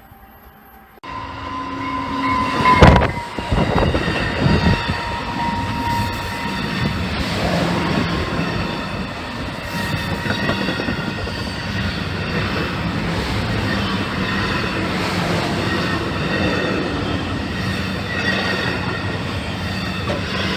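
Commuter train running on rails: a steady rumble of wheels with a high wheel squeal and clacking. It starts abruptly about a second in, with a loud bang about three seconds in.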